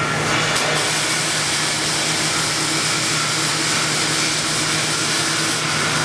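Robotic welding arc on 316L stainless steel, a steady hissing buzz with a low hum underneath.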